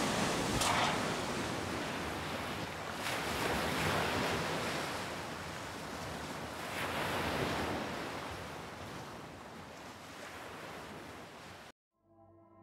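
Hurricane wind and driving rain: a steady rushing noise that swells and eases, fading gradually and then cutting off suddenly near the end.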